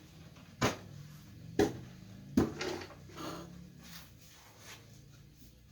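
Wooden drawer of a Lane table knocking and scraping in its runners: three sharp knocks about a second apart, the last followed by a short scrape. The drawer drops because its thin guide, cut into the drawer side, is broken off.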